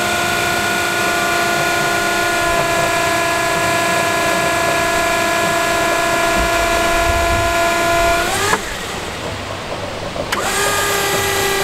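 Electric forklift's hydraulic pump motor whining steadily while the carton clamp arms close. About eight and a half seconds in the whine rises in pitch and cuts off, then starts again about two seconds later at a slightly different pitch.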